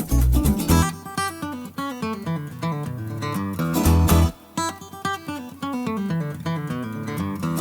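Background music led by a plucked guitar melody; the bass drops out about a second in and comes back near the end.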